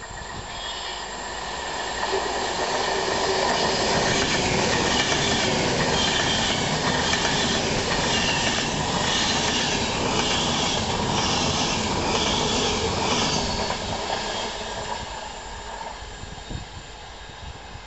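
High-speed express passenger train running through a station at speed: a rush of wheel and air noise builds over the first few seconds, with a regular clatter as the coaches' bogies pass close by, then fades after about fourteen seconds.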